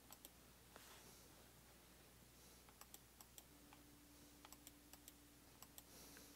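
Faint computer mouse clicks and keystrokes, a dozen or so short clicks scattered unevenly over quiet room tone.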